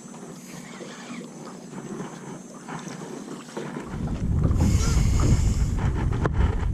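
Wind buffeting the microphone: a low rumble that starts suddenly about four seconds in and stays loud over faint outdoor ambience. A brief hiss comes about five seconds in, and a sharp knock near the end.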